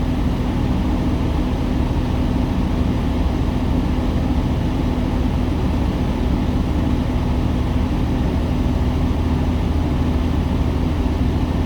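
Semi-truck diesel engine idling steadily, heard from inside the cab, with the heater blower running on max.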